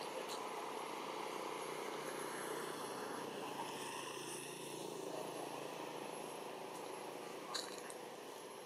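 Steady outdoor background noise with a faint low hum through the middle and one short click near the end.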